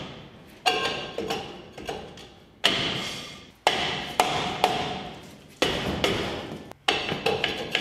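A hammer striking a stuck front brake drum again and again to knock it loose from the hub. The knocks are irregularly spaced, about half a second to a second apart, and each has a short metallic ring.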